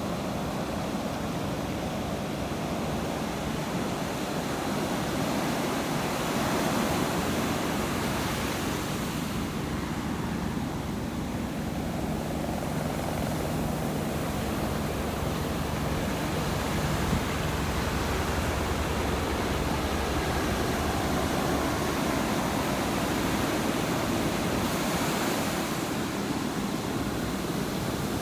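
Ocean surf washing on a shore, a continuous wash that swells and eases. A faint low hum sits underneath through the middle.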